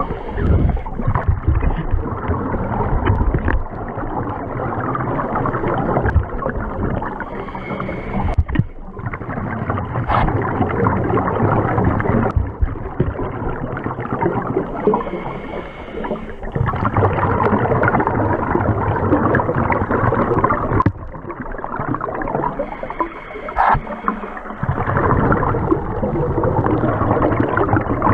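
Muffled underwater rushing noise of water moving past a camera in a waterproof housing during a drift dive. It drops away briefly every few seconds and has a couple of sharp clicks.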